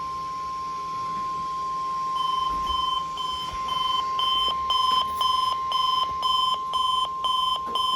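NOAA Weather Radio's steady 1050 Hz warning alarm tone, the alert tone that comes before the monthly test message. About two seconds in, a weather alert radio's high-pitched alarm beeps start over it at about two a second, getting louder.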